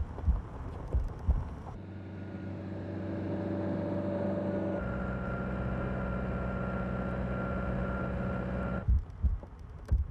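Military vehicle's engine running, heard from inside the cab, its note changing about halfway through. Deep, paired thuds come at the start and again near the end.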